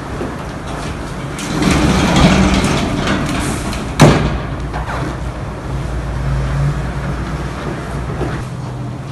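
Steady low hum with a swell of rushing noise, then a single sharp knock about four seconds in.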